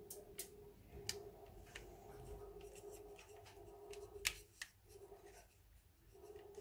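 Faint soft strokes of a pastry brush spreading béchamel sauce over lasagne sheets, with a few light clicks and a faint steady hum underneath.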